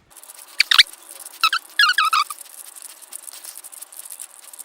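Hand-turned 5x5x1 plastic cuboid twisty puzzle being scrambled. Its layers click and rattle as they turn, with a few short louder scraping bursts in the first two seconds or so.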